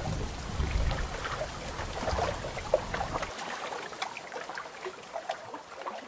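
Rain falling and pattering with many small splashes, under a low rumble of thunder that cuts off a little over three seconds in; the rain then carries on alone and fades near the end.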